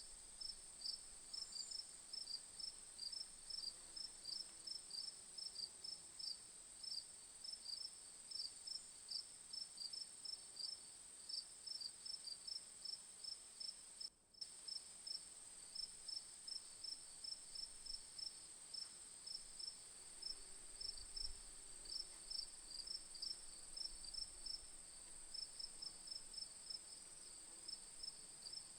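Crickets chirping: one steady, high continuous trill, with rhythmic pulsed chirps a little lower in pitch repeating a few times a second. The sound cuts out for an instant about halfway through.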